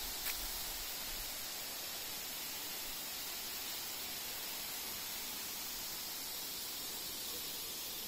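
Steady rushing of a waterfall heard through the forest, an even unbroken hiss.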